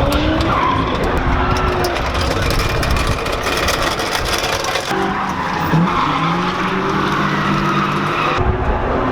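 Drift car engine revving hard and rising and falling in pitch, with tyres squealing and skidding. The sound changes abruptly a couple of times.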